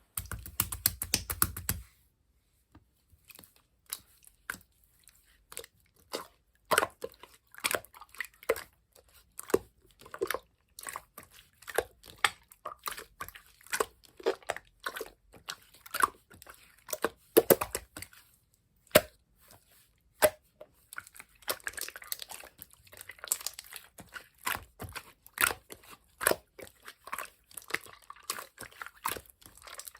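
Clear slime being squeezed and pressed by hand, making irregular wet clicks, crackles and pops, sometimes several in quick succession.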